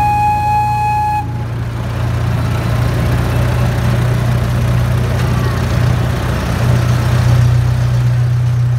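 Miniature train's horn sounds one steady toot for about a second, over the steady low hum of the locomotive's engine as the train rolls along.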